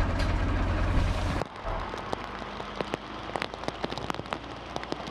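A tractor engine runs with a low rumble and cuts off abruptly about a second and a half in. Then comes steady rain falling, with many sharp individual drop ticks.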